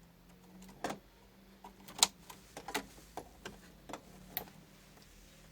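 Scattered light clicks and ticks at irregular intervals, about ten in all, over a faint steady low electrical hum from the just-powered TV board on the bench.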